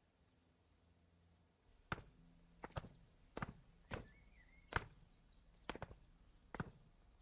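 Footsteps of two people walking on a hard path, starting about two seconds in, with a sharp step roughly every half second to second and some steps landing almost together.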